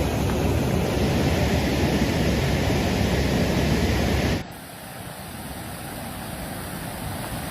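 Loud, steady rush of fast-flowing floodwater, which cuts off abruptly about four seconds in and gives way to a much quieter steady background noise.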